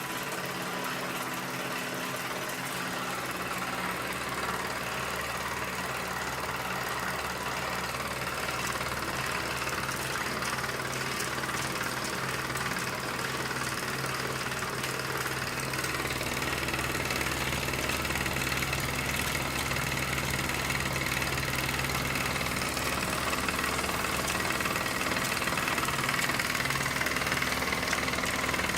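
Antique toy live steam engine running steadily and driving a model accessory through its mechanism, a continuous mechanical running sound that grows slightly louder in the second half.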